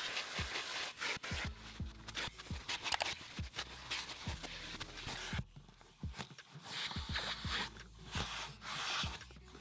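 A vacuum hose nozzle dragged back and forth over car floor carpet, a rubbing, sucking hiss that rises and falls with each stroke, under background music with a steady bass beat.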